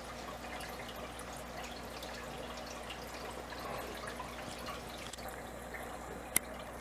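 Aquarium water trickling and dripping steadily, with one sharp click about six seconds in.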